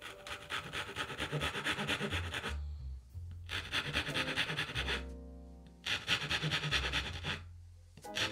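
Japanese dozuki saw cutting into hardwood: three runs of quick strokes with short pauses between, and a fourth run starting near the end. Soft background music plays underneath.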